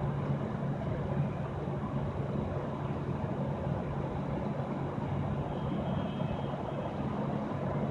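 Steady city street traffic noise, with the low hum of running vehicle engines at a constant pitch.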